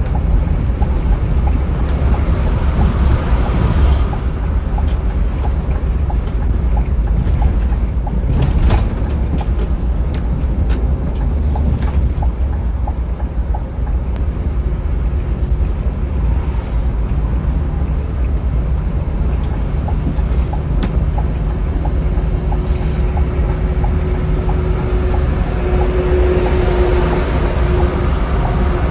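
Scania K360iB coach driving on the road: a steady low engine and road rumble with scattered rattles and clicks, and a faint steady whine joining in over the last few seconds.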